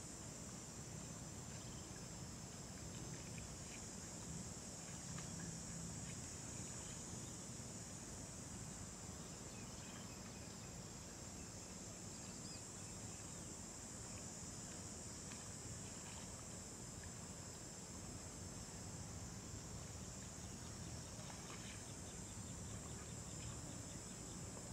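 Steady, high-pitched drone of insects, unbroken throughout, with a faint low rumble beneath and a few faint ticks.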